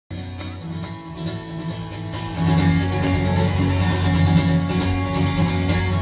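Live band playing the instrumental intro of a song on acoustic guitar, electric guitar and bass guitar, getting louder about two and a half seconds in.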